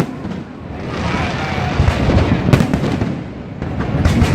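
Aerial fireworks going off: a continuous low rumble and crackle of bursting shells, with a sharp bang about two and a half seconds in and two more close together near the end.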